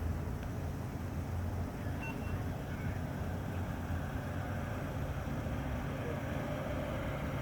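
A fire truck's engine running with a steady low rumble, with road and tyre noise building over the last couple of seconds.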